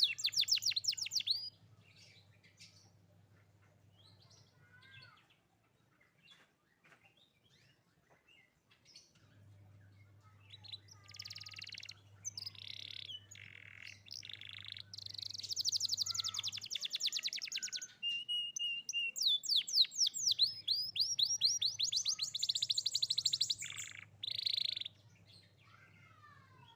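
Young domestic canary singing in fast, rolling trills and rapid repeated chirps. A loud phrase opens, then a quieter spell of scattered chirps, then long trilled phrases run on through most of the second half.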